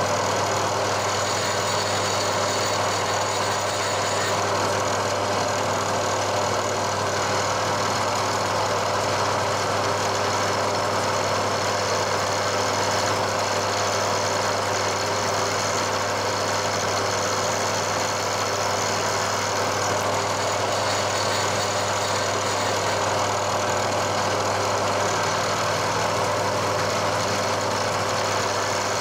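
Milling machine spindle running as a freshly resharpened four-flute carbide end mill takes a moderate cut in aluminium. It is a steady mechanical hum with a constant pitch and an even level, with no change in the sound as the cut goes on.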